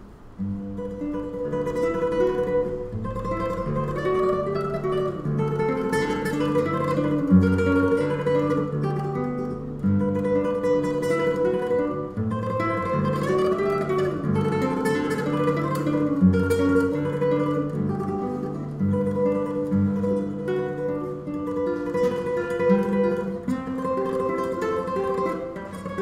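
Solo classical guitar played live, nylon strings plucked: a melody over low bass notes. The playing comes in again a moment after a brief pause at the start and then continues without a break.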